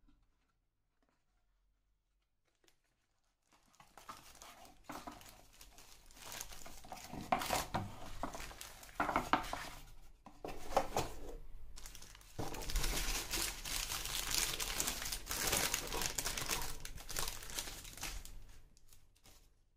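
Greaseproof paper wrapper crinkling and rustling as it is unfolded from around a wrapped pitta, starting about three seconds in and loudest in the second half.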